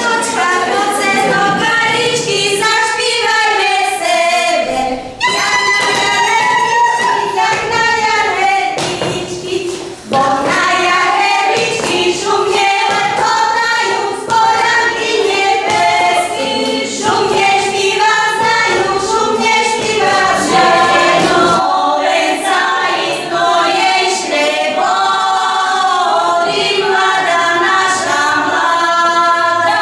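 A group of women singing a Slovak folk song together in unison, unaccompanied, with brief breaks about five and ten seconds in.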